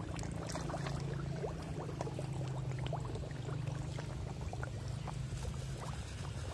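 Crowd of koi jostling at the pond surface, their mouths breaking the water in many quick, irregular pops and small splashes. A steady low hum runs underneath.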